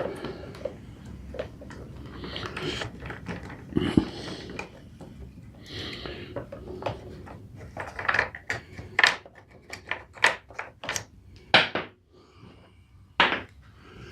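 Irregular clicks and knocks of a screwdriver and hands working at a mower's plastic axle cover, with one heavier knock about four seconds in and a quicker run of sharp clicks in the second half.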